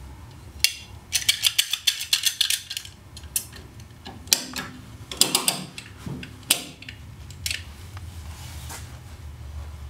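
Metal hand ratchet clicking in a fast, even run of about eight clicks a second for roughly two seconds, then a few scattered single clicks and short clusters of metal tool handling.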